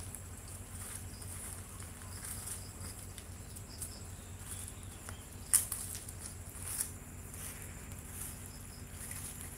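Steady high-pitched chirring of insects, with a few sharp clicks or taps. The loudest comes about five and a half seconds in and a smaller one just over a second later, all over a low steady hum.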